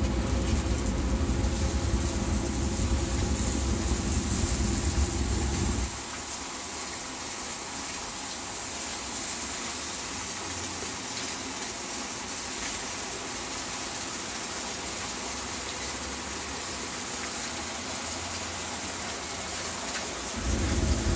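Water spraying from a decontamination shower, a steady hiss, over a low rumble that drops away about six seconds in and comes back near the end.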